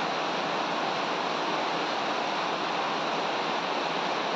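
Heavy rain falling steadily, an even, unbroken wash of noise.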